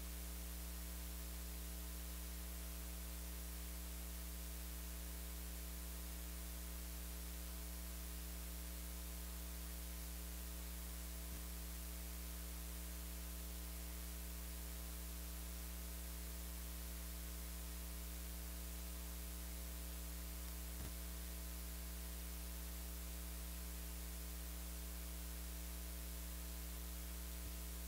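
Steady electrical mains hum with hiss: a strong low hum with a ladder of fainter higher overtones and an even hiss underneath. Two faint ticks come about ten seconds apart.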